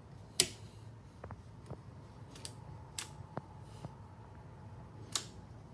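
A few sharp, scattered clicks, the loudest about half a second in, as the electric start of a 1996 Polaris Sportsman 400 ATV is tried; the starter motor does not crank at all, a sign the new battery, solenoid or wiring is not delivering power.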